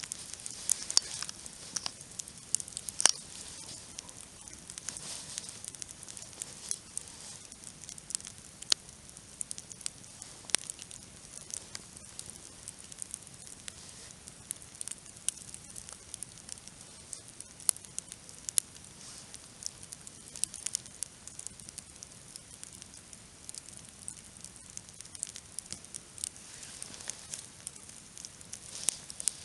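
Wood campfire crackling, with scattered sharp pops over a soft steady hiss.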